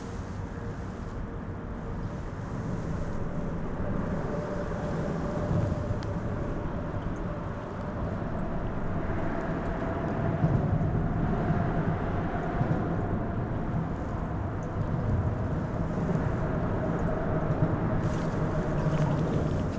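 Steady distant engine drone with a low rumble and a faint hum that slowly drifts in pitch, a little louder after the first few seconds.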